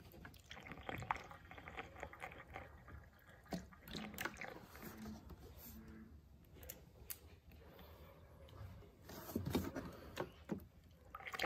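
Diesel exhaust fluid trickling faintly from a plastic jug through a funnel into the truck's DEF tank filler, with a few light knocks about nine to ten seconds in.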